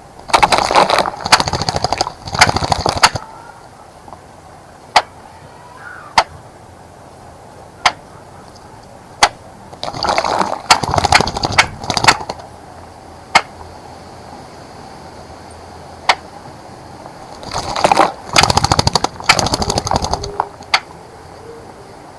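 A small bird bathing in a shallow bird bath, splashing water with rapid fluttering in three bouts of two to three seconds each. Single sharp ticks fall in the pauses between the bouts.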